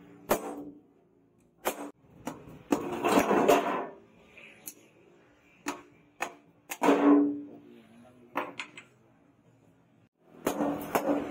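Hammer blows on a red-hot leaf-spring steel machete blade on a steel anvil during forging: irregular single strikes and quick runs of blows, each with a short metallic ring.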